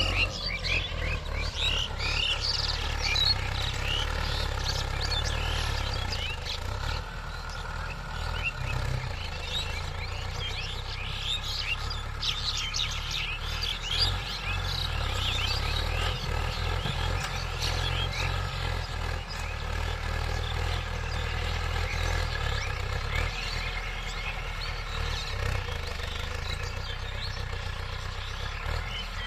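Mahindra diesel tractor engine running steadily under load as it pulls a tine cultivator through the soil. Birds chirp throughout.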